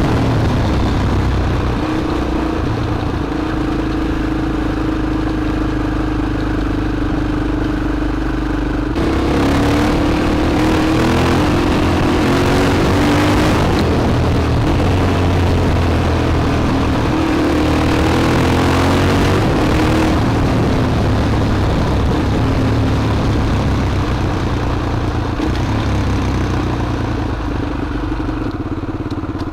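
KTM LC4 supermoto's single-cylinder four-stroke engine running. It holds a steady pitch for the first several seconds, then gets louder about nine seconds in, its pitch rising and falling with the throttle, and settles back to steadier running in the last third.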